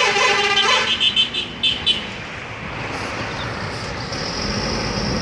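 A telolet horn playing its warbling multi-tone tune, which cuts off about a second in and is followed by a few short bursts. After that, the vehicle's engine runs with a steady hiss and a low hum that grows a little louder near the end.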